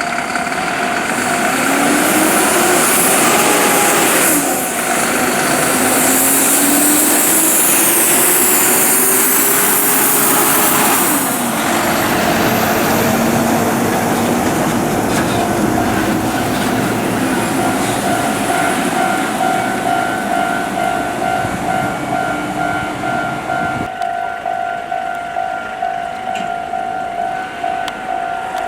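A heavy diesel double-trailer haul truck passes over the crossing, its engine pitch rising and falling, loudest over the first ten seconds or so, while the level-crossing warning alarm sounds in steady pulsed electronic tones. The truck noise fades after about 24 seconds and the alarm keeps ringing.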